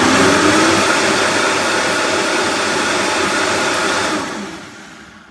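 Vitamix blender running at a steady speed, puréeing a thick vegetable soup. About four seconds in it is switched off and the motor winds down.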